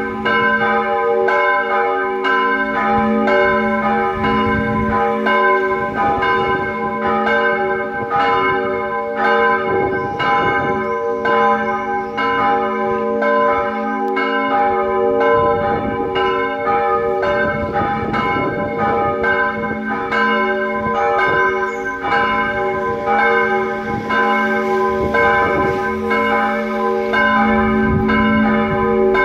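Church bells in a tower ringing together in a continuous peal, strike after strike at an even pace, their ringing tones overlapping without a pause.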